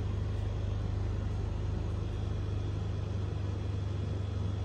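Steady low hum that runs unchanged throughout, with no distinct clicks or knocks over it.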